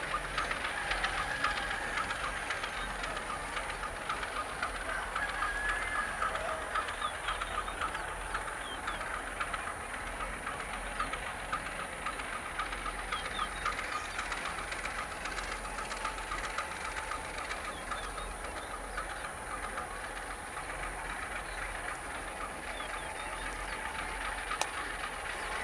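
Diesel-electric locomotive running as it moves slowly with its wagons, heard from a distance, with steady rail clatter and ticking from the wheels.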